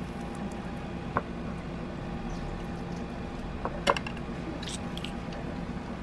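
Light clicks and taps of hands placing lemon slices in a ceramic baking dish, over a steady low hum; the sharpest click comes about four seconds in.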